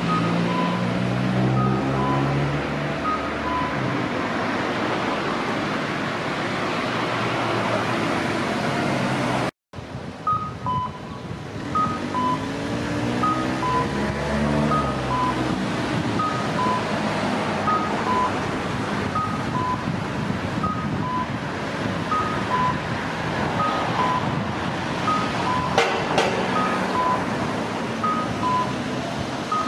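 Kyosan No. 21 imitation-type audible pedestrian signal playing its electronic "cuckoo" call through a horn speaker: a short higher note followed by a lower one, repeated over and over, sounding while the walk light is green to tell pedestrians they may cross. Road traffic runs underneath, and the sound cuts out briefly about a third of the way in.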